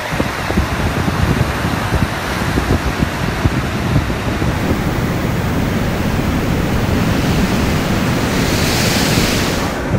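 Storm wind and heavy breaking seas: a steady rushing noise, with wind buffeting the microphone. A louder, hissing rush rises near the end.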